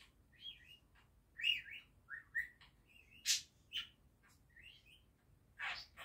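A budgerigar chattering: a string of short chirps and warbles with small gaps between them, the loudest a sharp chirp a little over three seconds in.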